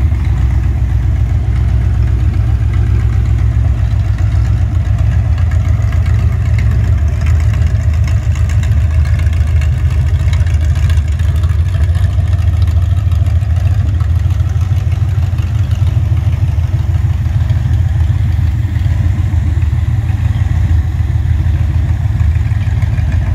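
Carburetted Ford 302 Windsor V8 running steadily on open-ended exhaust headers, with no mufflers.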